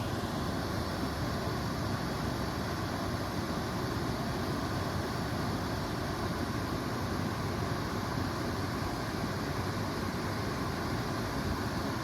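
Waterfall with water rushing down in a steady, unbroken roar of white-noise-like sound.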